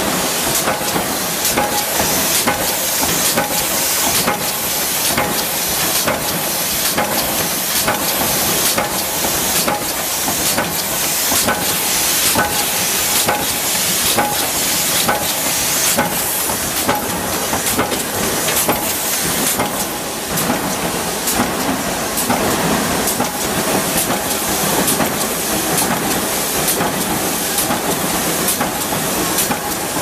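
Mechanical punch press stamping small metal drawer-lock parts, striking at a quick, regular pace over a loud, steady hiss of workshop machinery.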